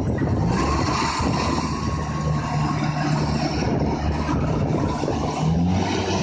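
An engine running steadily under load, its pitch stepping up about five and a half seconds in.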